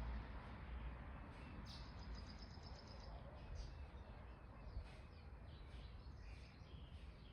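Birds singing: scattered high chirps, with a quick high trill of rapidly repeated notes lasting about a second, a couple of seconds in.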